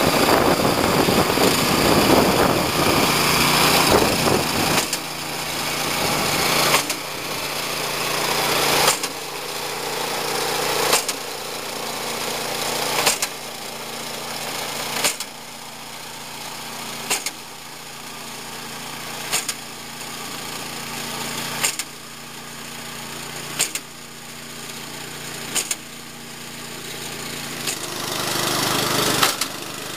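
Small petrol engine of a Groundsman TMC48 turf cutter running steadily. The machine cuts turf with a sharp clack about every two seconds as the chop-off attachment cuts the strip into lengths. The machine is loudest and most rumbling in the first few seconds.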